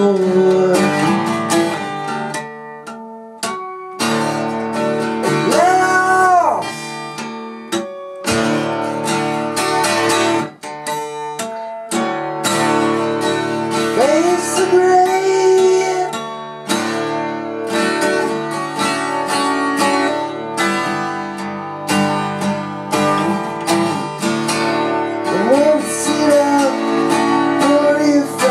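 Twelve-string acoustic guitar strummed in steady chords, with a few long wordless sung notes that slide up and down over it.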